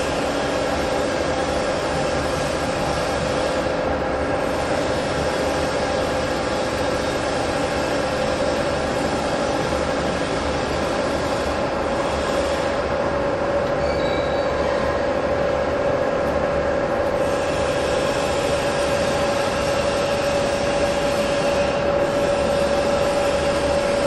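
Gas nitriding furnace machinery running: a steady, loud whine that slowly rises in pitch, over a constant mechanical hiss.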